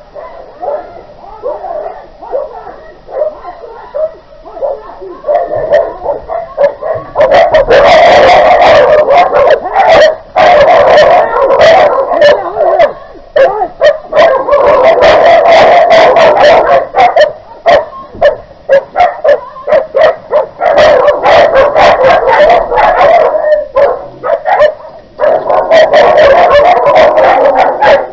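Dogs in a fight, a dog under attack yelping, howling and whimpering. The calls are faint at first and become very loud and nearly continuous from about seven seconds in, with only a few short breaks.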